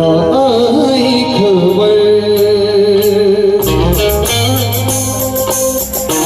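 Live band music: a long, wavering melody line held over a steady bass, with the bass getting heavier and a regular beat of strikes joining about three and a half seconds in.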